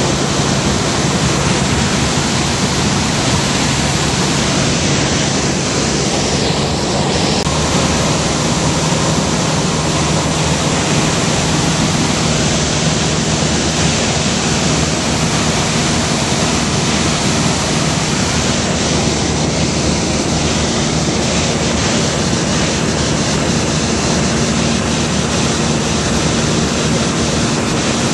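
Steady, loud cabin noise inside a high-wing light aircraft in flight: the propeller engine's even drone under a wide rush of wind.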